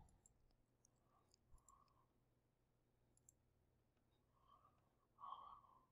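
Near silence with a few faint computer mouse clicks.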